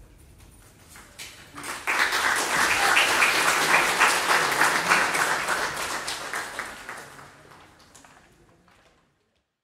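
Audience applauding. The clapping starts about a second and a half in, swells quickly, then fades away and stops shortly before the end.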